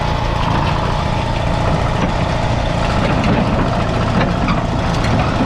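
Allis-Chalmers HD5 crawler's two-cylinder two-stroke GM diesel running steadily at low revs. A few short metallic clanks come in from about two seconds in, as the steel tracks move on the trailer's steel deck.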